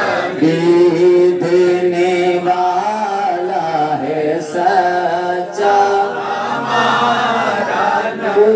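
Unaccompanied men's voices singing a naat, an Urdu devotional hymn, in long drawn-out held notes, a lead voice with others joining in.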